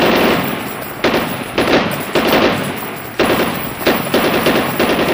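Gunfire: a string of shots, some about half a second apart and some with longer gaps, each followed by a trailing echo.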